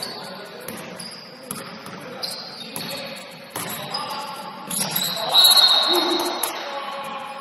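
Basketball game sounds: the ball bouncing on the court, with scattered sharp knocks, short high-pitched squeaks and players' voices, and a louder stretch about five seconds in.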